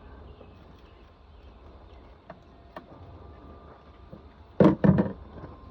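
A few faint clicks of hand work on the charger's parts, then three loud knocks in quick succession near the end, over a low steady hum.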